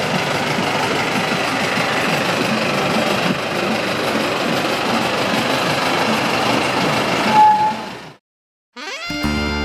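Steady street traffic noise, with a short high beep about seven and a half seconds in. It cuts off to silence just after eight seconds, and a plucked-string music track starts near the end.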